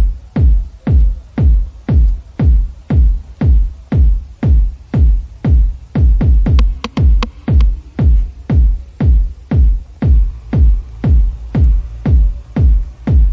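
Electronic dance music with a heavy kick drum beating steadily, about two beats a second.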